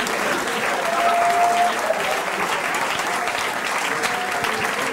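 Audience applauding and laughing.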